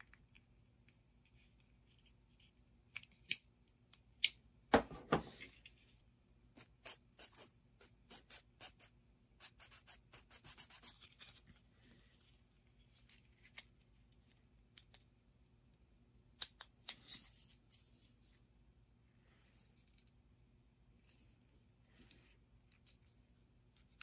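Handling and working on small snap-fit plastic model kit parts: a sharp plastic snap about five seconds in, then a run of light scratchy scraping ticks as a leftover plastic sprue nub is shaved down, and a few more small plastic clicks later on.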